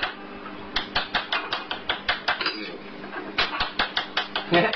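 Small porcelain teacups clinking against each other and the tea tray as they are handled. There are two runs of quick, light clinks with a short lull between them.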